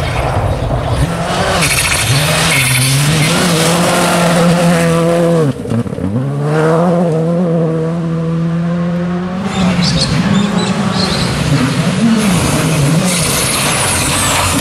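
Skoda Fabia R5 rally car's 1.6-litre turbocharged four-cylinder engine at high revs on a gravel stage, with gravel hiss from the tyres. About five and a half seconds in the engine pitch drops sharply and climbs straight back. In the last few seconds the engine note rises and falls repeatedly.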